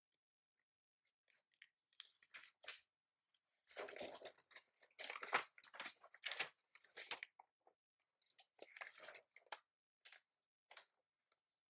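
Quiet desk-work sounds: irregular light clicks and crackly rustles, coming in clusters and busiest in the middle.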